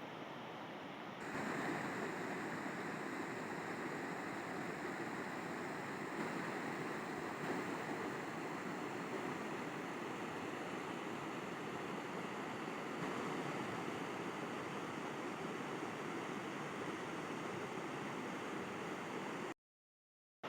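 River water rushing steadily, a little louder from about a second in. The sound cuts out completely for about a second near the end.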